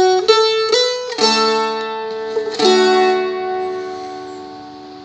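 Seagull Merlin fretted dulcimer being picked: three quick single notes, then two strummed chords about a second and a half apart that ring out and slowly fade.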